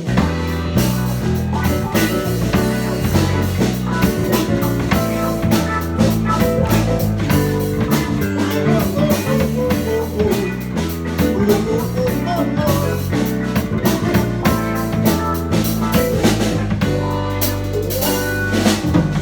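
Band music with electric guitar, bass and drum kit playing the instrumental introduction of a rock song before the vocals come in.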